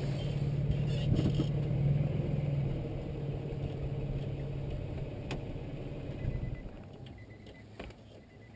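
2005 Nissan Xterra's 4.0-litre V6 engine running at a steady low speed, then falling away about six and a half seconds in, leaving only faint clicks.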